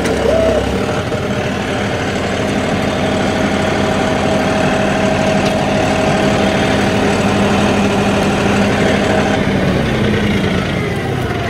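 Four-wheel-drive diesel tractor engine running steadily under load, its pitch dropping slightly about ten seconds in.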